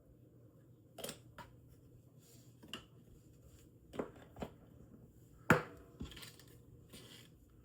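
Small model-kit parts and tools being handled on a workbench: a series of light clicks and taps about a second apart, the sharpest one about five and a half seconds in.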